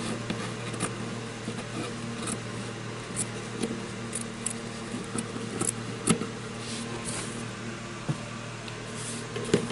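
Scissors snipping through black felt in short, irregular cuts, over a steady low hum.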